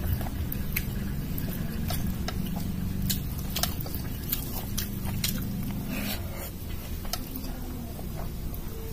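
Close-miked wet eating sounds: chewing dal and rice with irregular smacking mouth clicks, over a steady low hum.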